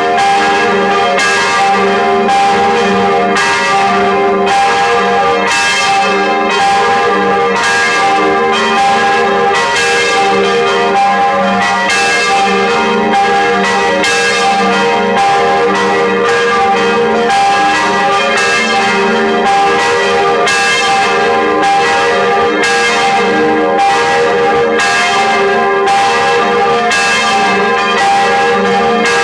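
Several church bells swinging in a full peal. Their strikes come in a steady, unbroken stream, each ringing on and overlapping the next.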